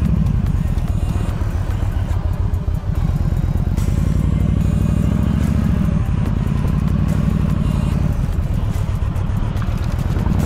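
Yamaha V Star 1300 Deluxe's V-twin engine running steadily while riding, with background music over it.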